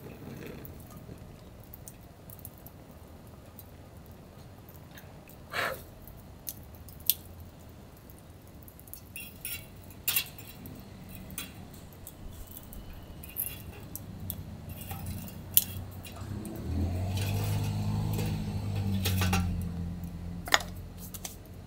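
Burning sticks being pulled out of a Bushbuddy twig stove with wooden tongs to lower the heat under the rice pot: scattered clicks and clinks of wood against the metal stove. A low hum swells for a few seconds near the end.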